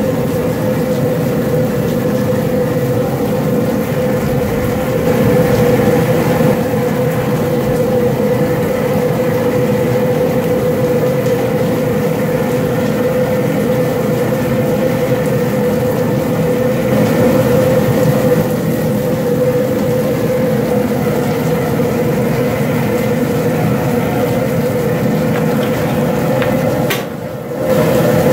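Propane burner under a large boil pot running steadily: a loud, even rush of flame with a constant hum, the seasoned water at a boil. It dips briefly near the end.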